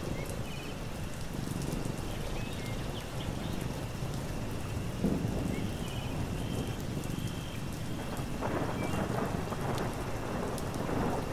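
Thunderstorm: steady rain with rolling thunder, swelling louder about five seconds in. Faint short high bird chirps sound over it.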